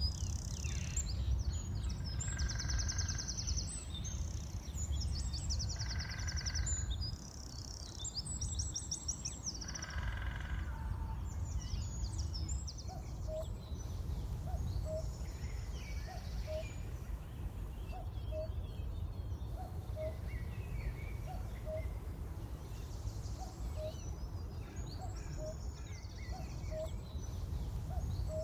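Common cuckoos calling, a steady run of short low 'cuck-oo' notes repeating from about halfway through. Before that, smaller songbirds sing in short, rapid, high trills. A steady low rumble runs underneath.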